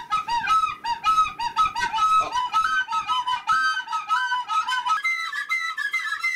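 White plastic school soprano recorders playing a quick run of short, separate notes. About five seconds in, the notes jump up to a higher register.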